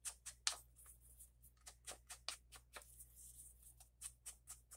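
Inking tool rubbed along the edges of paper in quick, light strokes, about three a second, as the paper edges are darkened with ink.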